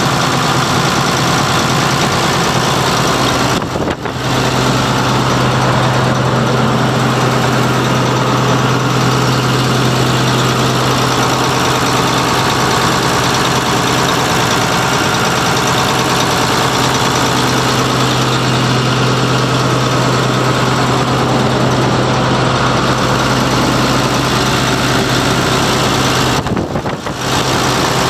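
John Deere 8640 tractor's 6619 six-cylinder diesel engine running steadily, with two brief dips in level, about four seconds in and shortly before the end.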